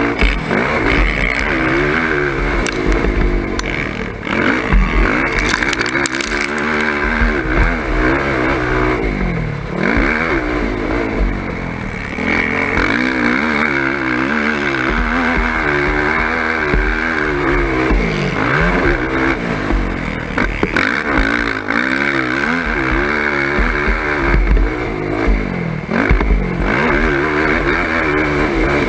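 Sport quad engine heard onboard, revving up and falling off again and again as the rider accelerates and shifts through the track's turns and bumps, with a few sharp knocks and some clatter from the chassis over rough ground.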